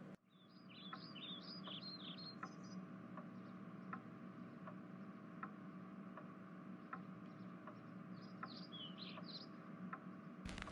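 Faint background ambience: a steady ticking about every three-quarters of a second over a low hum, with two short spells of small birds chirping, one in the first few seconds and one near the end.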